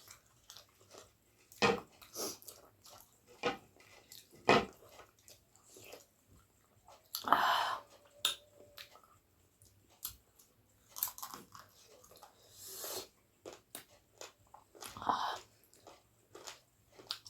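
Close-up eating sounds of a person chewing and biting pork, with irregular wet smacks and crunches and a few louder bites.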